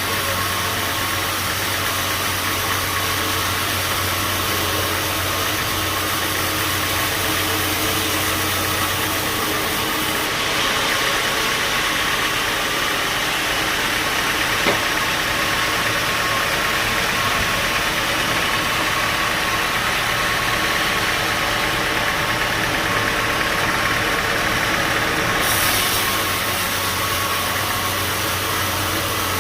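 Band sawmill machinery running steadily. Its sound changes from about a third of the way in until near the end, and there is a single sharp click near the middle.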